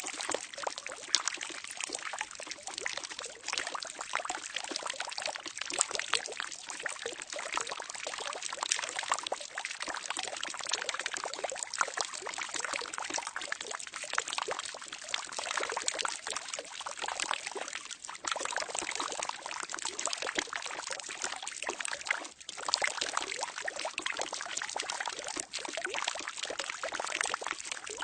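Water pouring steadily into a barrel, a continuous splashing and gurgling stream with fine droplet crackle and small dips in level.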